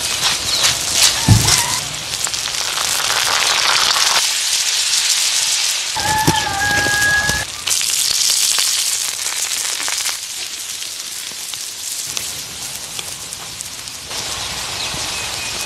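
Small fish, chopped chilies and scallions sizzling as they are stir-fried on a hot stone slab over a wood fire. The hiss changes level abruptly several times, and a brief steady tone sounds about six seconds in.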